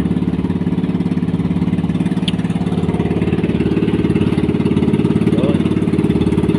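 Outrigger boat's small engine running steadily while the bangka is underway, with a fast, even beat; it gets a little louder about three seconds in.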